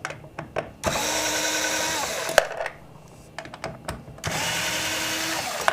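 Small electric screwdriver run twice to back out screws, about two seconds and then a second and a half, its motor whine rising as it spins up and dropping as it stops. Small clicks of handling fall between the runs.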